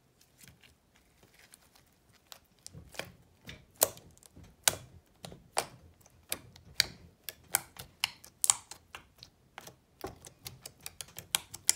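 Pale slime being squeezed and poked by fingers, trapped air pockets popping in sharp, irregular clicks, several a second. Faint at first, the pops grow louder and more frequent after about two seconds.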